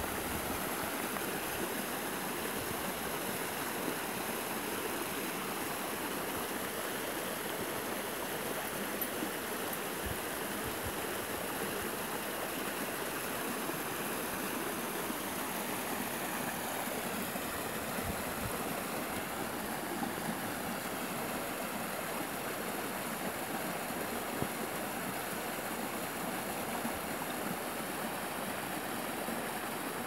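A small stream running steadily, a constant even rush and splash of flowing water.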